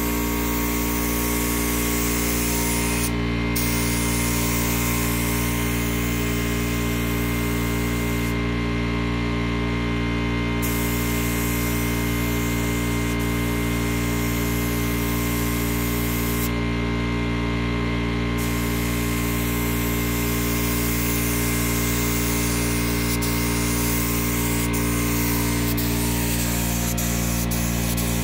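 Gravity-feed paint spray gun hissing as compressed air atomises orange paint onto a car body. The hiss stops briefly about three times as the trigger is let off, over a steady low hum.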